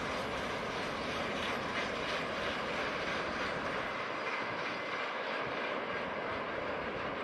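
Freight train of tank cars rolling away along the track: a steady clatter of wheels and wagons on the rails.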